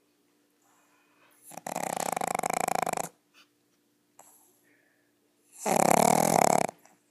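A pug snoring: two long snores, the first lasting about a second and a half and the second, about four seconds later, shorter and louder.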